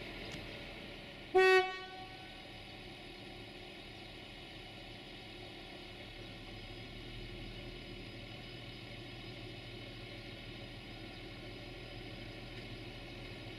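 A diesel multiple unit's horn gives one short toot about a second in, over the low, steady running of the railcar's engine as it approaches slowly.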